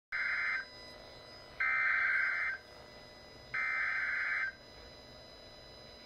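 Emergency Alert System SAME header from an FM radio broadcast, played through a clock radio's speaker: three bursts of digital data tones about a second apart, the first cut short. It is the coded header that opens an EAS alert, here a tornado warning.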